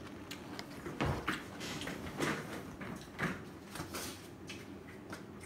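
Handling noises from a paper cup of ramen and a foil pouch on a counter: a dull thump about a second in, then several lighter knocks and scuffs.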